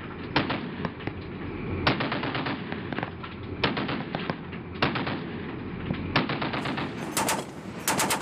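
Browning M2 .50 caliber heavy machine gun firing short bursts of a few rounds each, roughly every second and a half.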